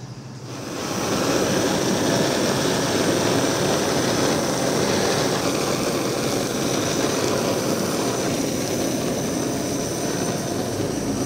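Handheld kitchen blowtorch burning with a steady rushing hiss as its flame sears the skin of mackerel pressed sushi. The sound comes on about half a second in and holds level.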